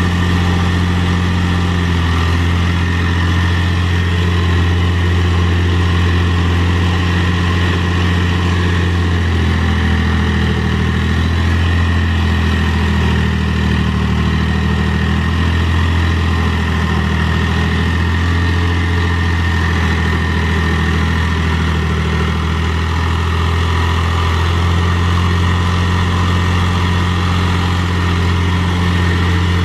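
Mahindra 3525 tractor's three-cylinder diesel engine running steadily while it pulls a box blade through dirt. The engine speed rises a little about a third of the way in and settles back near the end.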